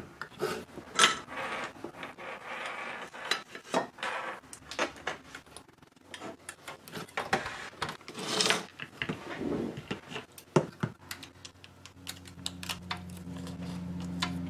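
Tools and small parts being handled on a workbench: irregular clicks, taps and light rattling with some scraping. A low steady hum comes in about halfway through and gets louder near the end.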